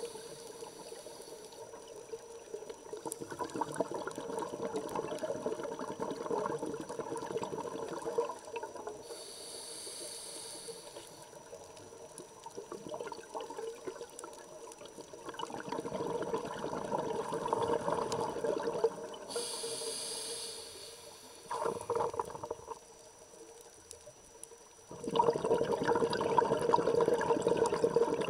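Scuba diver breathing through a regulator underwater: a hiss on each inhale, then several seconds of bubbling exhaust on each exhale, in slow breaths. There are two inhales, about ten seconds apart, and the loudest bubbling comes near the end.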